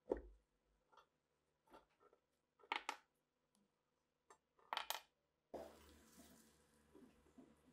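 Rusty metal parts being handled and set down on a wooden workbench: scattered light clicks and clinks, loudest as two quick knocks about three seconds in and again about five seconds in. From about five and a half seconds in there is a faint hiss with small ticks as the parts are handled.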